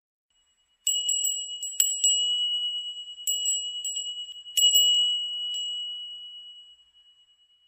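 A small high-pitched chime ringing one note, struck over and over at irregular intervals in little clusters, like a wind bell moved by the wind, then left to ring out and fade near the end.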